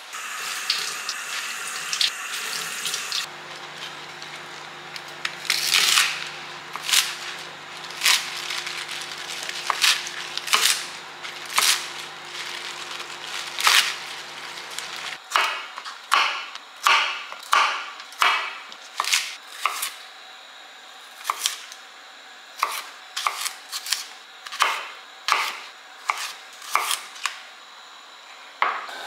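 Knife cutting food on a cutting board in slow, repeated strokes, roughly one a second, with a steady low hum that stops about halfway through.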